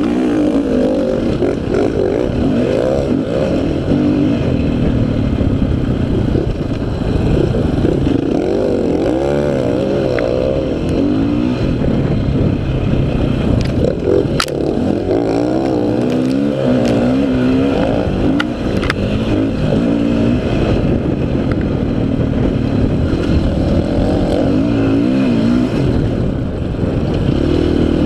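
Dirt bike engine heard from on board while riding, its pitch rising and falling over and over as the throttle opens and closes, with a few sharp ticks around the middle.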